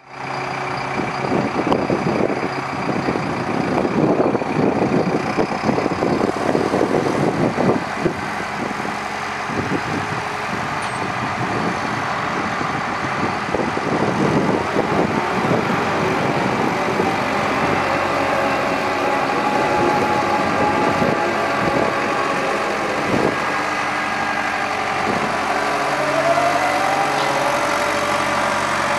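Liebherr A900C wheeled excavator's diesel engine running while the hydraulics work the boom and slew the upper structure. The engine note swells and dips unevenly over the first few seconds, then runs steadier, and a rising whine comes in near the end.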